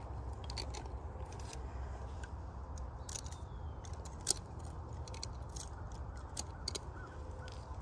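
Scattered light, sharp clicks and ticks, one louder near the middle, over a steady low rumble.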